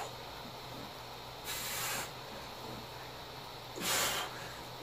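Two short, forceful breaths blown out hard, about two seconds apart, each with a hissing sound, from a man exerting himself through repeated starfish crunches. A steady low hum runs underneath.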